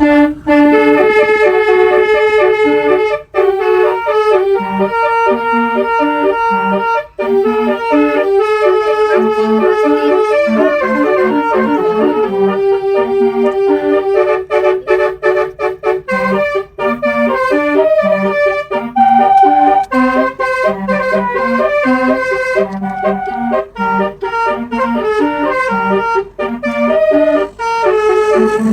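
A bus's basuri musical horn playing a song: a loud, continuous reedy melody of stepped notes over a bouncing bass line.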